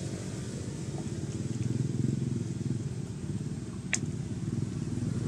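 Steady low rumble of an engine running, with a single sharp click about four seconds in.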